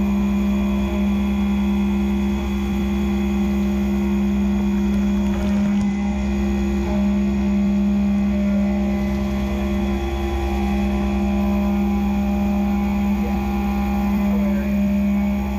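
Skyfire SVM-2 CNC mill cutting an aluminium block under flood coolant: the spindle and cutter make a steady, even pitched hum with a wash of spraying coolant.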